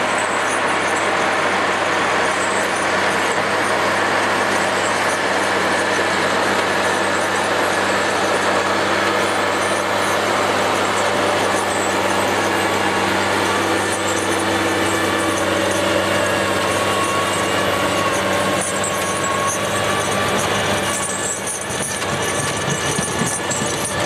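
Ponsse forestry forwarder's diesel engine running steadily under load as the machine drives through deep snow, with a high squeal that wanders in pitch.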